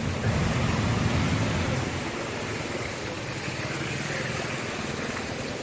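A motor vehicle's low engine rumble, fading over the first two seconds, over a steady hiss.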